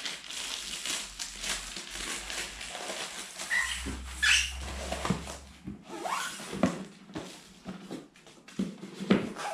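Packaging rustling as an eyepiece is packed back into its box, with a couple of brief squeaks around the middle, then several light taps and knocks of small cardboard boxes being handled and set down.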